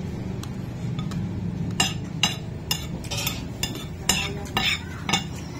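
Cutlery clinking against a plate in a series of sharp, irregular taps as food is scooped up while eating, over a steady low hum.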